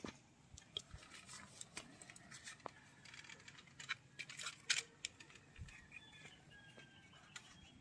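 Rubber-coated work gloves being pulled onto the hands: faint rustling and scattered soft clicks of the glove fabric, with a sharper snap a little before five seconds in.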